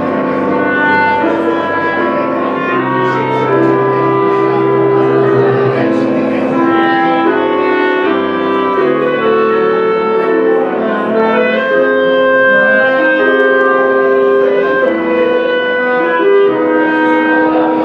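Two clarinets playing a duet, holding notes in two parts that move together, with possible piano accompaniment underneath.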